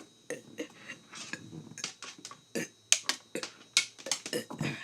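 A rapid, irregular series of short, sharp clicks and gulps from a person's mouth and throat, several a second, made while working up burps.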